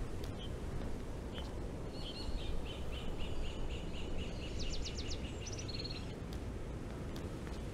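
A small bird calling in a rapid run of short repeated chirps, ending with a few quick downward-sweeping notes, over a steady low outdoor rumble.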